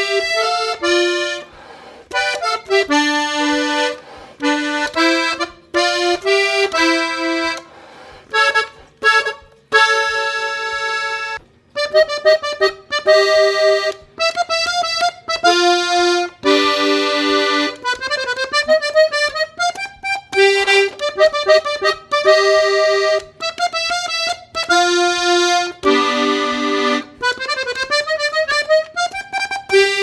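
Farinelli three-row diatonic button accordion in G played solo: a quick melody over chords, in phrases broken by short pauses.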